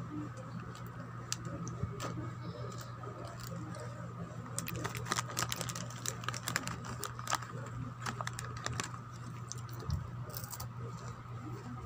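Crinkling and crackling of a plastic snack packet being handled: scattered sharp clicks, busiest in the middle, over a steady low hum.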